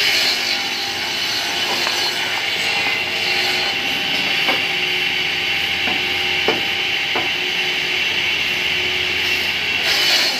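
BINGUMA MCG-8 pallet block cutting saw running steadily with a high saw whine, as it cuts wooden blocks. A few sharp wooden knocks come in the middle.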